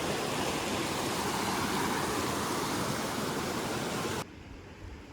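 Rushing river water, a steady hiss of flowing rapids, that cuts off suddenly about four seconds in to a much quieter background.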